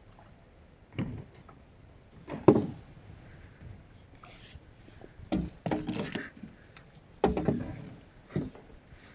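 Irregular knocks and rustling from a landing net being handled, its wooden pole knocking against the wooden jetty boards and its mesh brushing close by, with the loudest knock about two and a half seconds in.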